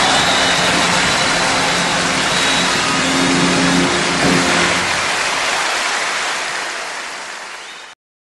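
Slideshow soundtrack ending: a dense rushing noise with a few held low notes. It fades over the last few seconds and cuts off abruptly just before the end.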